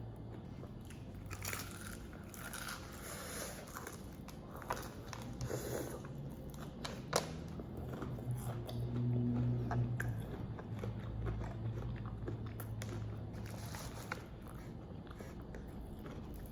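A person biting and chewing crispy fried chicken close to the microphone: irregular crunches and wet chewing sounds over a steady low hum.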